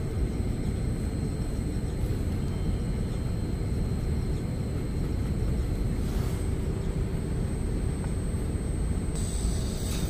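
Steady low outdoor rumble with a faint steady hum.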